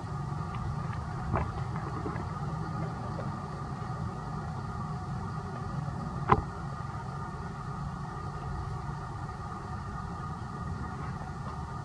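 Steady engine hum in the background, with a sharp click about six seconds in and a fainter one about a second and a half in.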